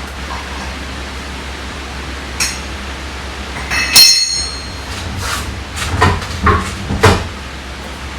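A sharp metallic clink with a brief high ring, about halfway through, as a metal tool or lug nut is knocked or set down during wheel work. Three dull knocks follow near the end, from a wheel and tyre being handled. A steady low hum runs underneath.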